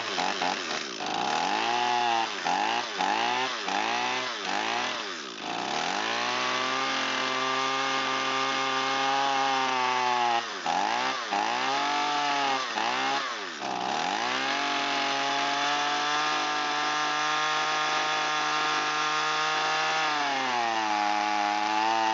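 Echo SRM225 string trimmer's two-stroke engine running at high speed, its revs sagging and recovering over and over in two stretches and holding steady in between, then settling to a lower speed near the end. The engine is running a little lean.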